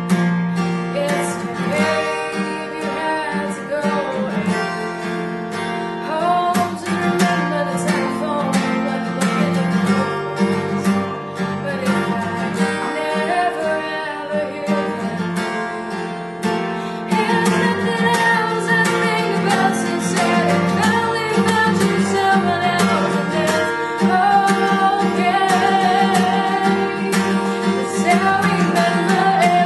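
Acoustic guitar strummed and picked, accompanying a woman singing a melody. The playing grows fuller and louder a little past halfway.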